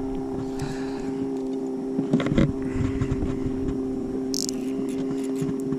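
Steady hum of an electric trolling motor on a bass boat, with a few light clicks from baitcasting reel handling and a brief hiss about four seconds in.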